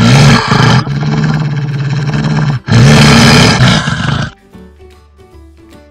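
Wolf growling: two long, loud, rough growls on a low, steady pitch, the second starting just after the first stops, over soft background music that carries on alone after about four seconds.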